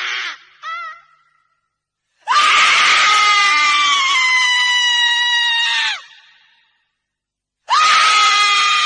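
A woman screaming: a short wavering cry, then one long high scream of about four seconds that sags a little in pitch, and another high scream starting near the end.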